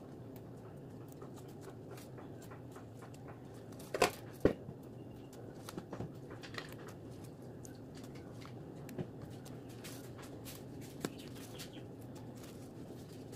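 Hands stripping sweet potato leaves and shoots from their stems: light rustling and small snapping clicks, with two sharper clicks about four seconds in, over steady low background noise.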